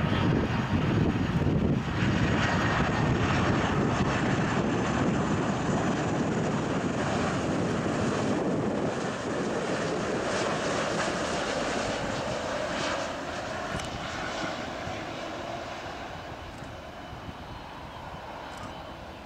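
Airbus A330-300 jet engines on final approach passing close by, a steady jet rumble that fades gradually through the second half as the airliner flies away to touch down.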